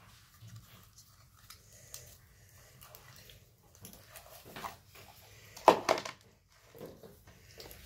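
Slime being squished and pulled by hand, making soft sticky squelches and clicks, loudest about six seconds in.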